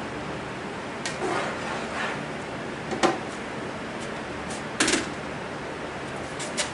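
Kitchen handling sounds: a few scattered knocks and clinks of a utensil, dishes and things being picked up and set down on the counter, the sharpest about three seconds in and again near five seconds, over a steady background hiss.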